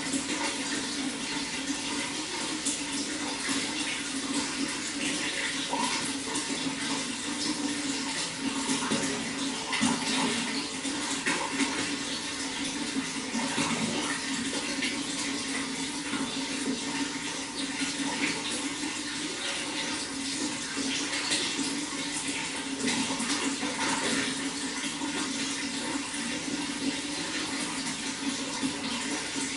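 Running water flowing and splashing steadily, a dense continuous rush with small splashes all through.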